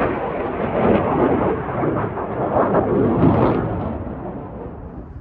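Eurofighter Typhoon flying past, the loud rumble of its two EJ200 jet engines fading away from about four seconds in.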